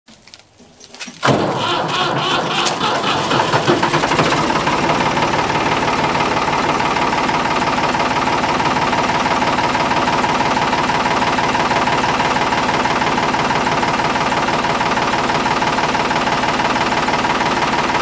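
Ford 555 backhoe's three-cylinder diesel engine starting: it catches suddenly about a second in, runs unevenly for a few seconds, then settles into a steady run.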